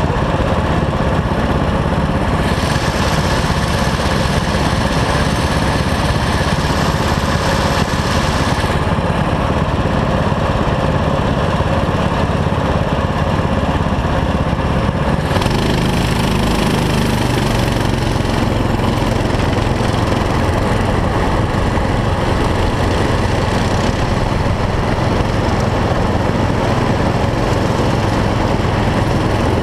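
Small four-stroke kart engines running at a steady idle, then the onboard kart's engine pulling away and running under way from about halfway through.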